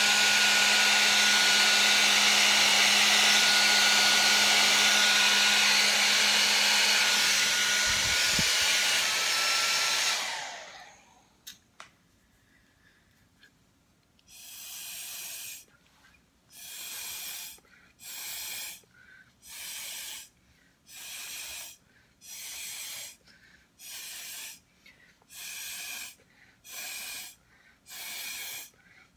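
Hair dryer blowing on high with a steady motor hum, switched off about ten seconds in and running down, followed by a couple of faint clicks. Then about a dozen short puffs of breath blown through a straw, roughly one a second, to push wet acrylic paint across a canvas.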